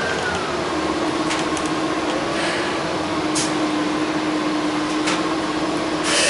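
Interior of a New Flyer XD60 articulated diesel bus under way: a steady rumble of engine and road noise with a whine whose pitch slides down in the first second and then holds, plus a few light rattles and clicks.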